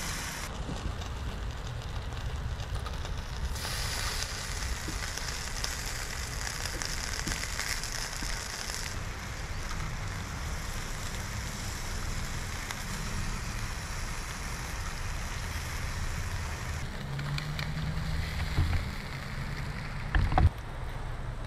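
Seasoned beef short rib sizzling on a small charcoal grill: a steady hiss over a low wind rumble. There is a brief knock near the end.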